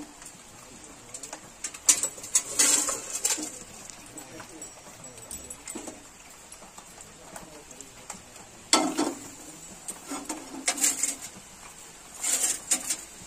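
Boiled macaroni and its water tipped from a nonstick pan into a steel colander in a sink: several short bursts of pouring water and knocks of pan and colander, between quieter stretches of faint hiss.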